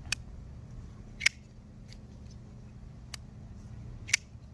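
Custom folding pocket knife being worked open and shut, giving four sharp metallic clicks as the blade and lock engage. The loudest clicks come about a second in and near the end.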